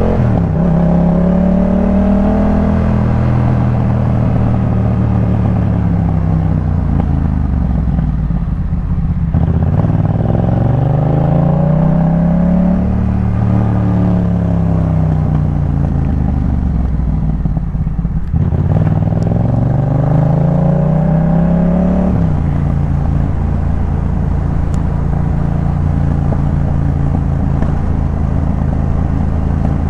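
Yamaha MT-07's 689 cc parallel-twin engine through a Jeskap K4 full aftermarket exhaust, on the move. The revs climb and fall in long sweeps with two sharp drops between them. It then settles to a steady low note for the last third.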